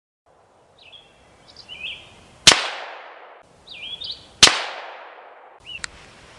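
Two rifle shots from an AR-style rifle in 5.56/.223, about two seconds apart, each with a long echoing tail. Birds chirp briefly before each shot.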